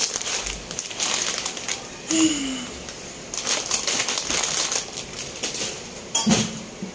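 Plastic snack packets crinkling and rustling as they are handled, in several irregular bursts.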